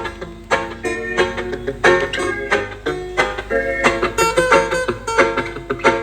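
Music played through a mobile sound system: an instrumental with a rhythmic, plucked-string riff.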